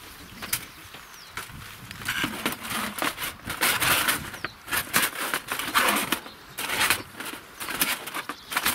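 Folding aluminium stove windscreen being opened out and stood up: thin metal panels rattling and clattering, with sharp clicks throughout and the busiest rattling in the middle.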